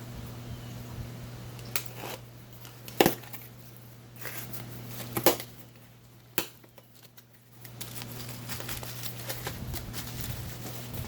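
A small parts box and its wrapping being opened by hand: crinkling and rustling with a few sharp clicks and taps, the loudest about three and five seconds in, over a steady low hum that dips away briefly past the middle.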